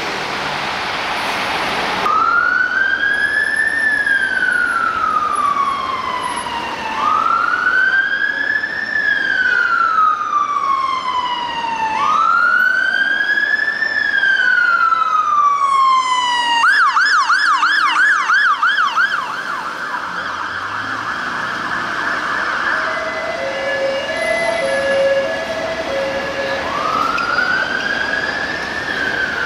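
Fire engine siren on wail: three slow rise-and-fall sweeps of about five seconds each, then a switch to a fast warbling yelp, a held steady tone, and a new wail starting near the end.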